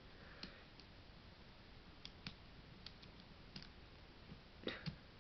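Near silence: room tone with a few faint, scattered clicks, two slightly louder ones near the end.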